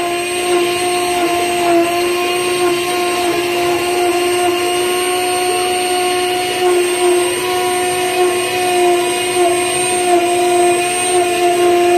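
Rotary-tool spindle of a small desktop CNC router running steadily at high speed as its bit engraves into a slice of log: a steady whine with the rasp of the cut.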